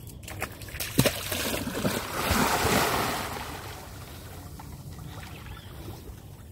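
A man going into the water and swimming, with a loud splash and churn of water that swells to its loudest about two to three seconds in, then settles into quieter sloshing from his swimming strokes.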